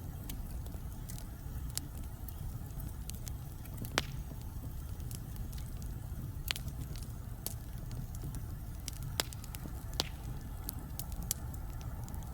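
Wood logs burning in a fireplace: a steady low rumble of flames under scattered crackles, with a handful of sharper, louder pops spread through.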